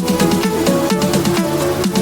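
Electronic dance music with a steady beat and a quick, repeating synth melody.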